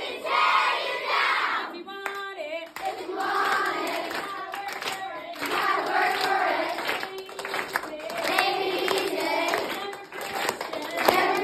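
A group of young voices singing and chanting together in a small room, with hand claps, opening with a loud group shout.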